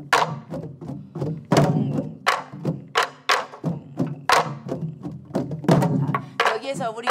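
A group of sori-buk (pansori barrel drums) played together in the jungjungmori rhythm. Sharp stick strikes on the wooden shell alternate with duller palm strokes on the drumhead, and a voice calls out briefly near the end.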